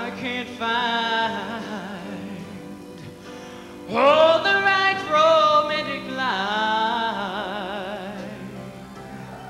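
Male soloist singing a pop ballad into a handheld microphone over instrumental backing, in three long phrases with held notes and vibrato. The loudest phrase comes about four seconds in.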